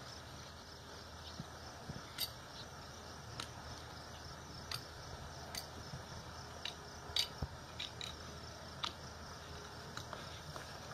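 Hoof nippers clipping a horse's hind hoof wall during a trim: a string of sharp snips, roughly one a second at uneven intervals.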